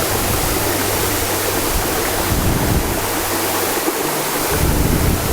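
Wufengqi Waterfall's falling water making a loud, steady rush of white noise.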